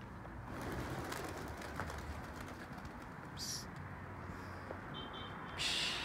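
Domestic pigeons' wings flapping in short flurries as the flock is put up to fly, the loudest flurry just before the end.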